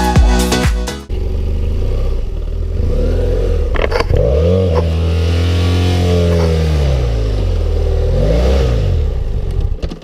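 BMW F800GS motorcycle's parallel-twin engine running after a second of electronic music, revving up about three seconds in with a sharp click, holding high, then dropping back, with a short second rev near the end.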